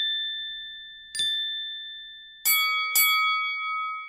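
Chime sound effects of a subscribe-button animation, clear bell-like dings that ring out and fade. One ding sounds about a second in. Two lower, fuller dings follow close together about halfway through and are still ringing at the end.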